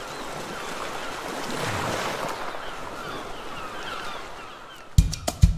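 Sea waves washing, fading in and swelling before easing off. Near the end a drum kit comes in with loud kick and snare hits.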